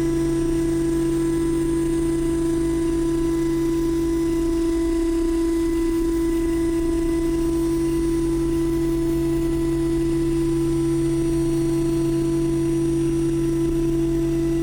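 CNC mill spindle running steadily while surface-milling aluminum with a PCD face-milling insert, giving one constant, even whine. The camera mounted on the machine's moving axis picks up the machine's vibration.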